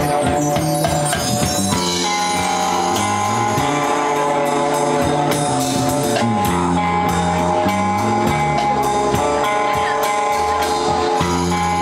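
Live rock band playing: electric guitar and electric bass over a drum kit, the cymbals ticking out a steady beat while the bass line moves from note to note.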